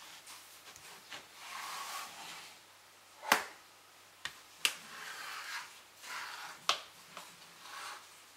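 Gakken New Block plastic building blocks clicking and sliding against each other as a hand pulls a bar of the block-built toy out and pushes it back in. There are several sharp clicks, the loudest about a third of the way in, with rustling slides between them.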